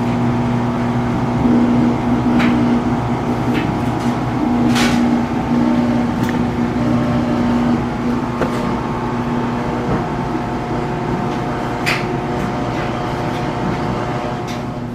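Samsung front-load washer's drain pump humming steadily as it pumps out the drum before the spin cycle, with a few light clicks. This machine throws an error code once it reaches spin.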